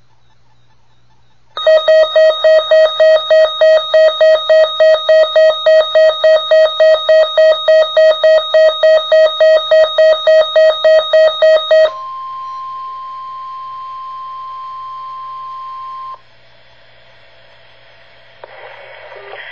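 Loud electronic alert beeping, about three beeps a second for some ten seconds, then a steady 1050 Hz Weather Radio warning alarm tone for about four seconds that cuts off. This marks a new emergency alert coming over NOAA Weather Radio. A broadcast voice begins near the end.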